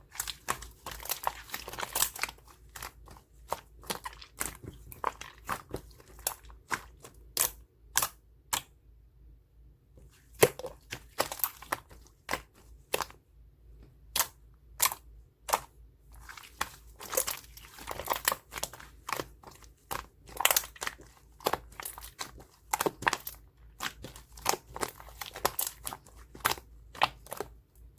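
Paper and plastic being handled close up: irregular crinkling, rustling and tearing with sharp little clicks, pausing briefly about a third of the way in.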